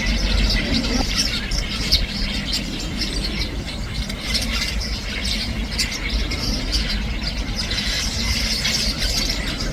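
A flock of house sparrows chirping continuously: many short, overlapping chirps.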